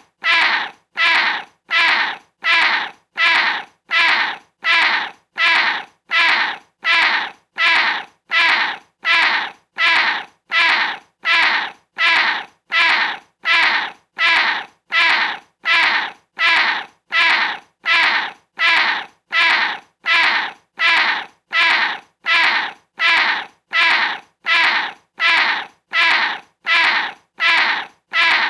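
A cat's small, short meow, the same call repeated evenly about three times every two seconds.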